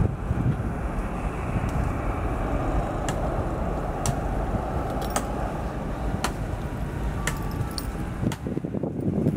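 Boeing 737 jet airliner taxiing, a steady low engine rumble mixed with wind on the microphone.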